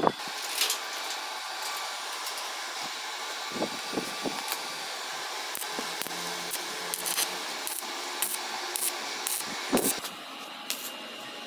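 Stick (arc) welding on square steel pipe: the arc burns with a steady hiss and sharp crackles. The pipes, so far only tacked in place, are being welded solid.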